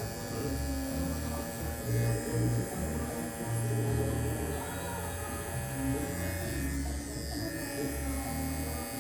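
Cordless electric hair clipper running steadily, its motor giving a constant buzzing whine, with background music's bass notes changing underneath.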